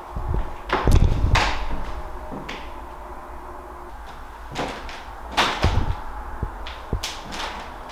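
A loud crack about a second in, with heavy low thuds under it. Further sharp knocks and creaks follow later, like steps on an old hardwood floor.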